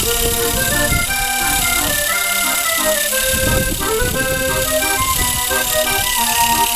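Music: a melody of held notes stepping up and down, with an accordion-like sound.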